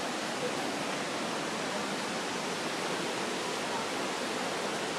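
Large waterfall rushing: the steady, even noise of falling water, close by.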